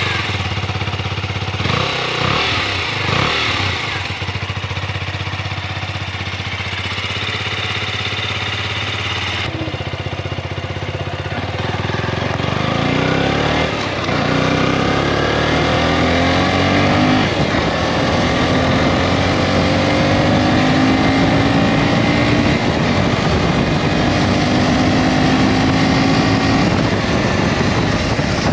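KTM Duke 125's single-cylinder four-stroke engine idling, then revved repeatedly from about twelve seconds in, its pitch rising and falling, and held at higher revs near the end.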